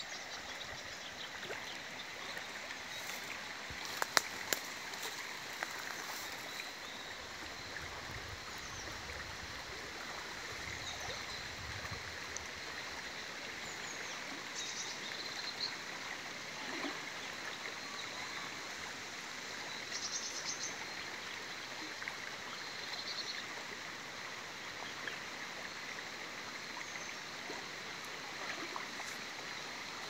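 Swollen, fast-flowing river rushing steadily past the bank. A bird calls briefly a few times, and two sharp clicks come about four seconds in.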